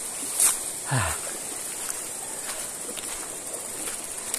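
Steady rush of a shallow, fast-flowing river with a high insect buzz over it, broken by a short knock about half a second in and a brief low voice sound about a second in.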